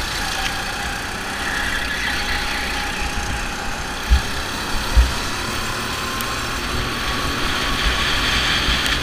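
Go-kart engine heard from onboard, its pitch rising and falling through the corners and climbing steadily near the end as the kart accelerates. Two low thumps come about four and five seconds in.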